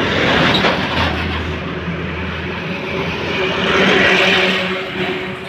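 Heavy diesel truck running on the road, engine hum under tyre and road noise, swelling louder about four seconds in.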